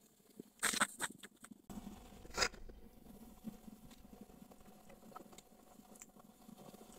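Faint rustles and soft taps from hand and body movement near a clip-on microphone, in a short cluster about a second in and another near two and a half seconds. Otherwise a quiet room.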